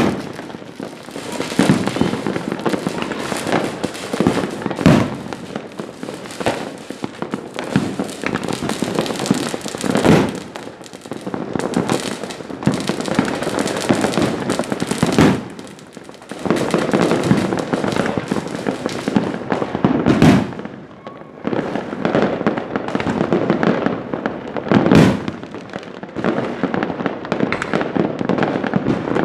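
Fireworks going off in a continuous barrage: a dense crackle of small bursts, with a louder boom about every five seconds.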